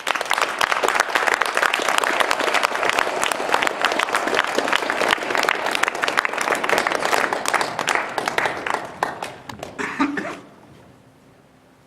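Audience applauding, dense and loud, dying away about ten seconds in.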